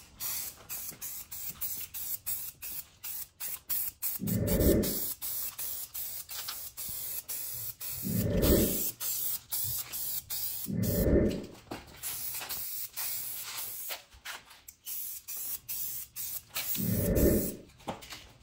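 Aerosol spray-paint can hissing over trike parts, with many small clicks and four louder rushes of spray about four, eight, eleven and seventeen seconds in.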